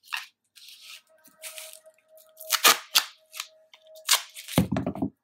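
Duct tape crinkling and crackling in several short bursts as it is pressed and smoothed around a sock-covered leg. A faint steady tone runs under most of it, and a brief low pitched sound comes near the end.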